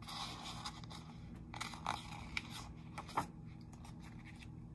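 Stiff pages of a large picture book being turned: paper rustling with a few crisp snaps, the loudest a little past three seconds in.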